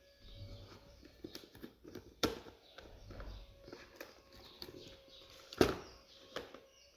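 Unboxing handling noise: rustling and small clicks of packaging and parts being handled, with two sharp knocks about two seconds and five and a half seconds in.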